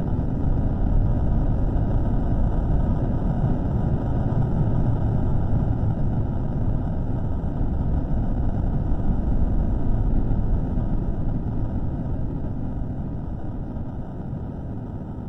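Low, steady rumbling noise from a microphone recording slowed to about a third of its speed, with no clear pitch or rhythm; it fades gradually over the last few seconds.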